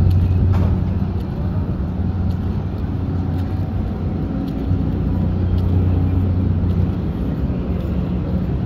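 Steady low mechanical hum with an even background noise, like an engine or motor running without let-up.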